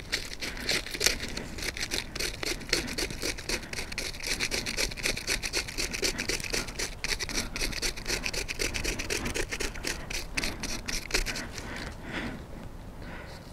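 Knife blade scraping a sheet of dry birch bark in quick, repeated strokes, raising shavings for fire tinder. The scraping stops near the end.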